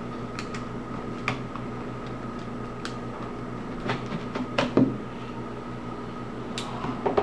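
Plastic clicks and knocks of a laptop's battery being unlatched and slid out of its bay, a handful of separate sharp clicks with the loudest about five seconds in, over a steady electrical hum.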